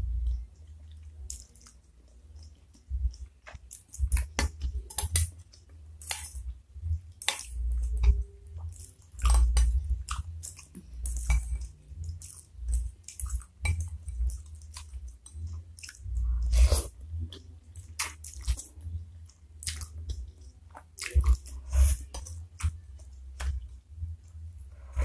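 Close-miked eating sounds: slurping and chewing flat wheat noodles in spicy broth, a rapid run of short wet mouth sounds, with spoon and fork handling in a ceramic bowl. Near the end, broth is sipped straight from the bowl.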